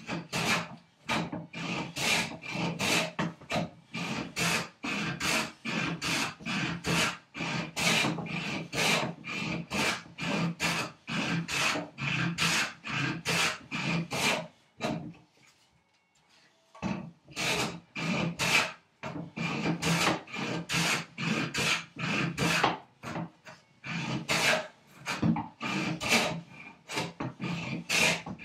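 Hand plane being pushed in quick strokes, about two a second, across a red oak vise chop, each stroke a rasping shave of steel through wood, with a short pause about halfway through. The piece has irregular figure that doesn't plane very well and leaves a scratchy surface.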